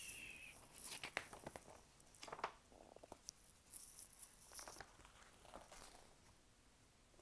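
Faint rustling and crinkling of a picture book's paper pages being turned and handled, with a few soft clicks.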